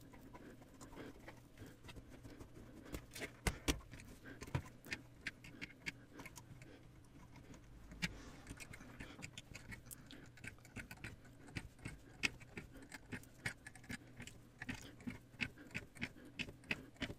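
Faint, irregular clicking and scraping of a metal loom-knitting hook against the pegs of a plastic afghan knitting loom as the yarn loops are lifted over the pegs. The clicks come quicker and more evenly in the last few seconds, about two or three a second.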